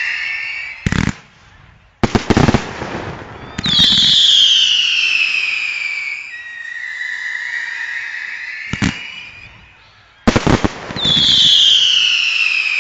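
Display fireworks fired close by: sharp bangs in clusters about one, two, nine and ten seconds in, with several whistles sounding together in between, some rising and others falling in pitch over a couple of seconds.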